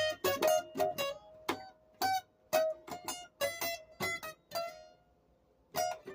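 Music on a plucked string instrument: a run of picked notes, each struck sharply and fading, with a pause of about a second before it picks up again near the end.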